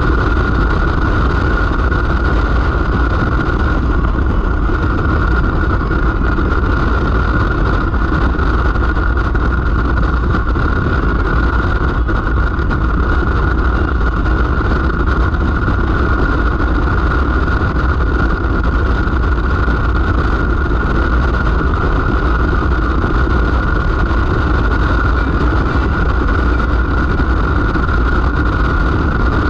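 Motorcycle running steadily on the road: an even drone of engine and wind noise, with a steady high hum on top and no change in pace.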